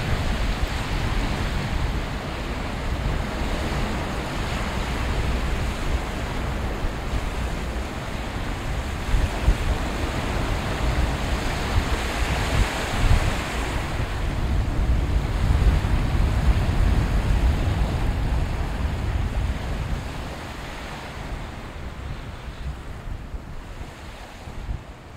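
Wind buffeting the microphone in uneven gusts over the steady wash of small waves on the river shore, fading out near the end.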